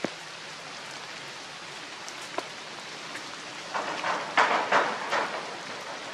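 Steady hiss of falling water, with a cluster of four or five short, louder noisy bursts a little under four seconds in that die away by about five seconds.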